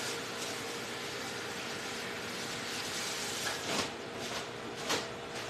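Steady kitchen hiss with a faint hum, broken by two light knocks a little over a second apart near the end.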